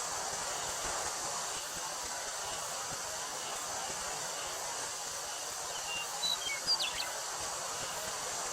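Steady wind through a wheat field with a constant high drone of summer cicadas. A few short bird chirps come about six to seven seconds in.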